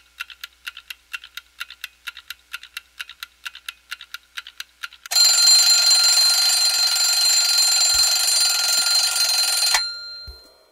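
Alarm clock ticking fast and evenly, then its bell ringing loudly for about five seconds before cutting off, waking the sleeper.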